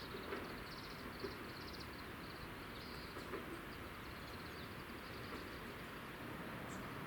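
Quiet outdoor ambience: a steady background hiss with faint, rapid, high-pitched chirps in the first few seconds and a few small clicks.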